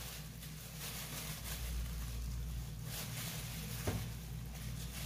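Quiet room tone with a steady low hum and a single soft click about four seconds in.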